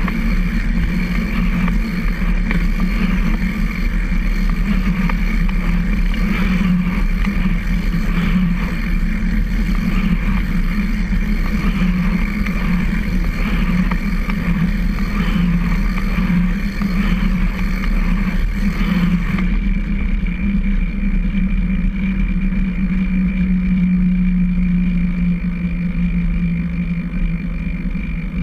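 Recumbent trike rolling along a concrete trail: a steady, loud hum of tyres and chain drive picked up close by the frame-mounted camera. The hiss above it drops away about two-thirds of the way through.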